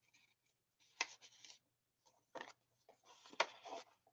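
Soft paper rustling and sliding as a small paper booklet is handled and tucked back into a paper pocket on a journal page, in a few short bursts with sharp taps about a second in and near the end.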